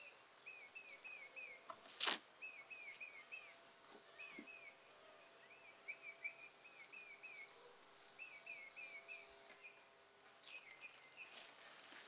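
A bird calling over and over, faint, in quick runs of three to five short chirps. A single sharp knock about two seconds in is the loudest sound.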